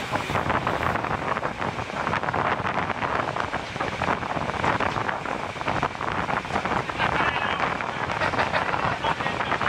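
Moving passenger train heard from an open carriage window: steady wind rush on the microphone over the rattling and clatter of the coach and its wheels on the track.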